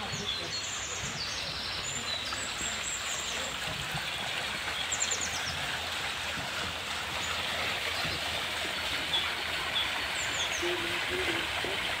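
Steady rush of a small stream flowing through the park, with a bird chirping a few times in short, high trills.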